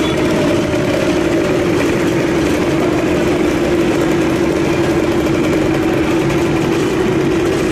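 Engines of a line of vintage motor scooters, Vespas among them, idling and running slowly together in a steady hum.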